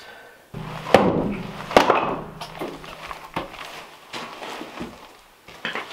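Wooden blocks and a wooden skid frame knocking and scraping on a stone floor as a heavy wood stove is shifted by hand. Two sharp knocks come about one and two seconds in, followed by lighter knocks and scrapes.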